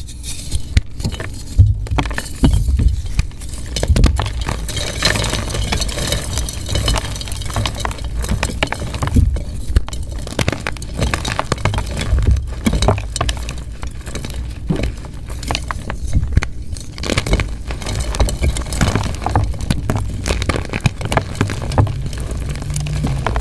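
Plain white gym chalk blocks being crumbled and crushed: a dense, continuous crackling crunch with many sharp snaps, over a steady low rumble.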